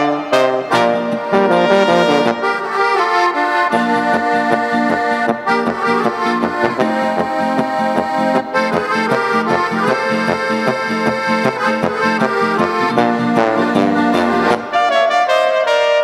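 German oompah-style folk music: accordion with a brass band of trumpets and trombones over a steady bass beat.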